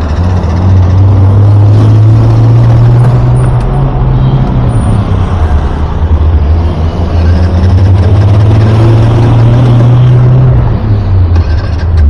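Scooter engine running with a steady low note that steps down and back up a few times, over general road traffic noise.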